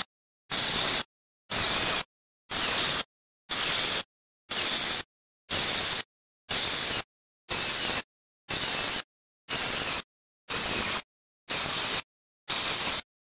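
Angle grinder cutting the edge of a quarter-inch acrylic disc, heard in even half-second pieces about once a second with dead silence between, the sound chopped up by fast-forwarding.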